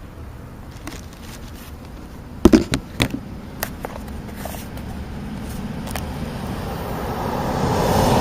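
A road vehicle passing: a steady rushing noise that swells slowly to its loudest near the end. A few sharp knocks and taps come close together about two and a half seconds in.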